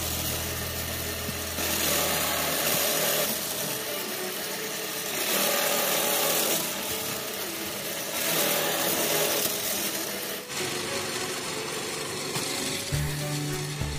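Electric bench drill press running, its bit boring holes through plywood: three louder passes as the bit cuts, about every three seconds, between steadier running.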